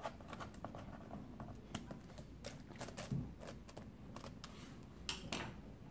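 Faint, irregular clicks and taps of hands working on a Dell Latitude E6410 laptop's plastic case and keyboard, with a few slightly louder clicks.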